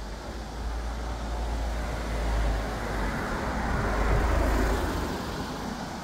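Road traffic: a car passing close by, a low rumble that swells, is loudest about four seconds in, and fades toward the end.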